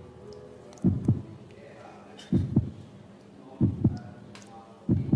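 Heartbeat sound effect: slow lub-dub double thumps, four pairs about 1.3 seconds apart, over faint held tones.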